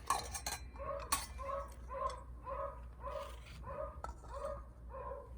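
A bird calling over and over in the background, short two-pitched calls about twice a second. In the first second there are a few sharp clinks of a utensil against a dish.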